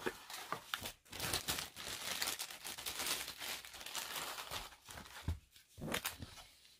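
Thin clear plastic packaging bag crinkling and rustling as it is handled during unpacking. The rustling is dense for the first few seconds, then breaks into a few separate rustles near the end.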